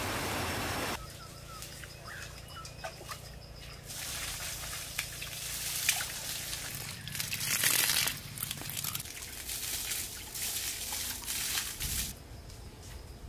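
A steady rushing noise cuts off about a second in. Then water splashes and trickles in irregular bursts with scattered small knocks, loudest about eight seconds in.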